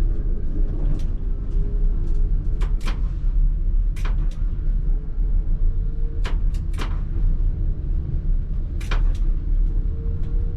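ČKD Tatra T3R tram running on its rails: a steady low rumble with sharp clacks, often in pairs, every second or two. Near the end there is a faint rising whine.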